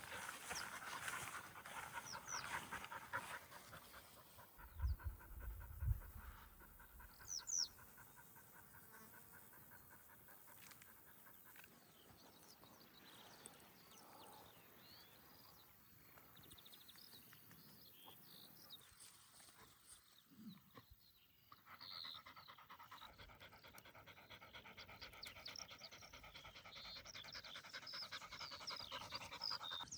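A dog panting in a quick, steady rhythm, with a few low thumps about five seconds in.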